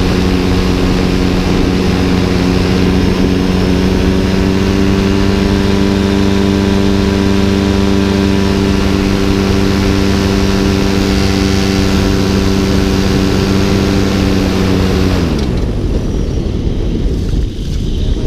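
Paramotor engine running at a steady, unchanging note, then quitting about fifteen seconds in: the note drops quickly and dies, an in-flight engine failure. Wind noise on the microphone is all that is left.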